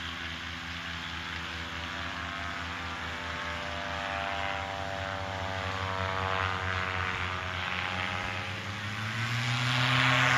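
Paramotor trike's engine and propeller running steadily, getting louder toward the end, with the engine note stepping up in pitch about nine seconds in.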